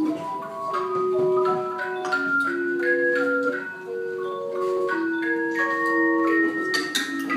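Tone chimes playing a melody: clear, sustained, bell-like notes, each held and then stopped, with two or three often sounding together.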